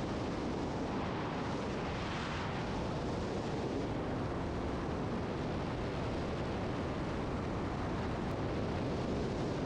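Single-engine aerobatic plane in flight, heard from the cockpit: the engine and rushing air make a steady, dense noise that holds one level throughout.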